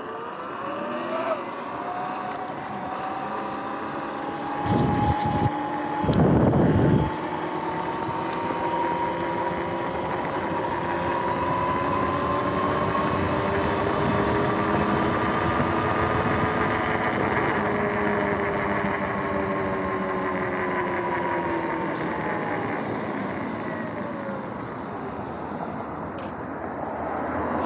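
Sur-Ron X electric dirt bike's motor and freshly replaced drive chain whining under way, over a steady rush of noise. The whine rises in pitch as it accelerates and falls as it slows near the end. Two brief loud rushes of noise come about five and six seconds in.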